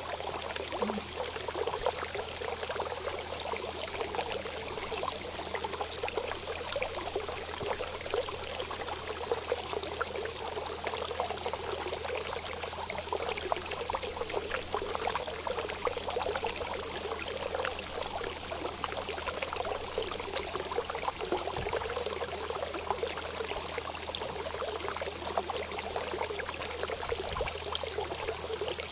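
Water running and trickling steadily, a continuous splashing flow with many small droplet sounds.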